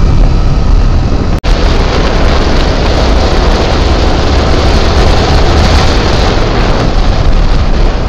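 Steady rush of wind over the microphone on a moving sport motorcycle, with engine and road noise underneath. The sound drops out for an instant about a second and a half in.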